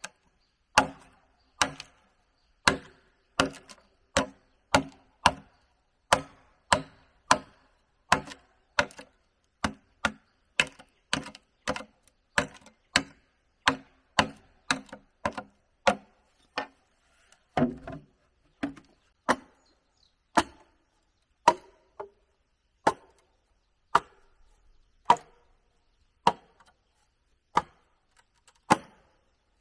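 Wood being chopped by hand with a blade: a long run of sharp single strikes, about one to two a second at first and more widely spaced in the second half.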